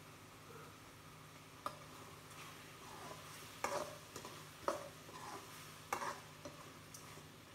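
A steel spoon stirring tomato and onion chutney in a pan, with five or six sharp scrapes and knocks of the spoon against the pan starting a couple of seconds in, the loudest in the middle. Under them the mixture sizzles softly.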